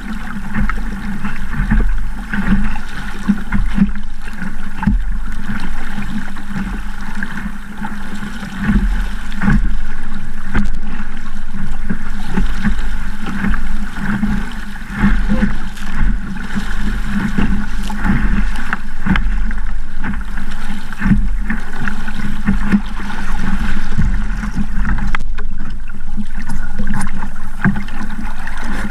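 Water rushing and splashing against the hull of a small Sabot sailing dinghy moving through choppy water, with wind buffeting the microphone. A loud, continuous wash broken by many small slaps of waves on the hull.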